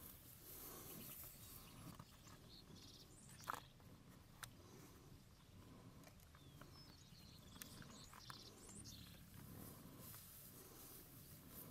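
Faint sounds of American bison grazing close by: grass being torn and chewed, with a few small clicks and faint bird chirps.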